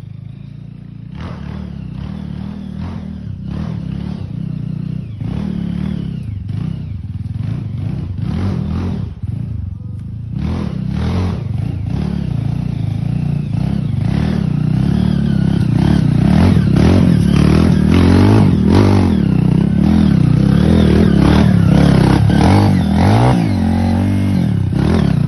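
Trail motorcycle engine revving hard on a climb, its pitch rising and falling again and again, with some clattering. It grows steadily louder as it comes closer.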